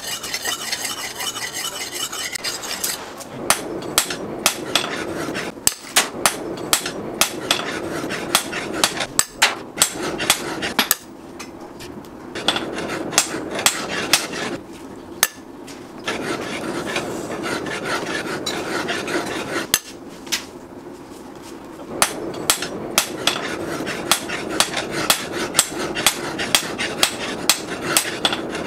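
A steel blade scraping on a sharpening stone for the first few seconds, then a long run of sharp metal-on-metal strikes, about two a second with a few short breaks, as the forged leaf-spring butcher knife is struck into steel nails laid on a metal stump.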